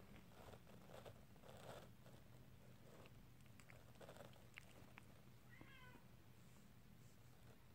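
One short, high-pitched whimper from a five-week-old pomsky puppy about five and a half seconds in, over very faint rustling as the puppy is stroked.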